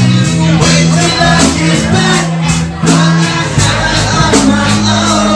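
Rock cover band playing live: bass, drums and a singing voice, loud and recorded from inside the crowd.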